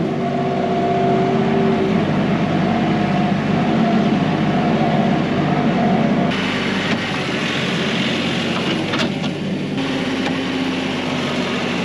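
Kioti NS6010 compact tractor's diesel engine running steadily at mid-range throttle while the loader bucket skims soil, with a stretch of added hiss about halfway through.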